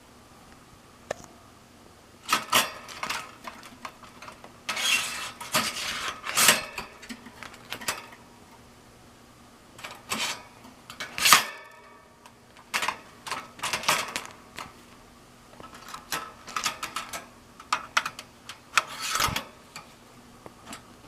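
Stainless steel bird cage parts clinking and rattling in irregular bursts of sharp clicks, separated by short quiet gaps.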